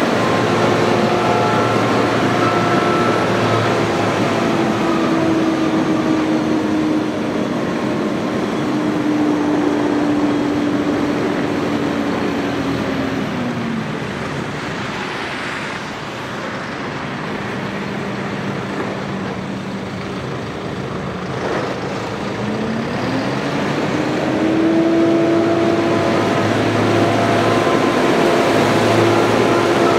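Kubota M7-151 tractor's four-cylinder turbo diesel running as the tractor drives by. The engine holds steady, drops to a lower speed about halfway through, then climbs back up several seconds before the end, where it is loudest again.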